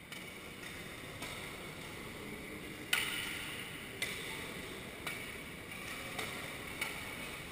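Badminton rackets striking shuttlecocks during rallies: sharp pops about once a second, the loudest about three seconds in, each echoing briefly in a large sports hall.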